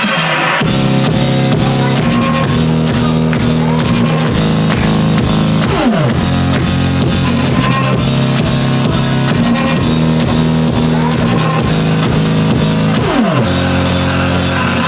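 Loud electronic dance music with a heavy bass line and a drum beat. A new section kicks in about half a second in, and falling pitch sweeps come twice, near the middle and near the end.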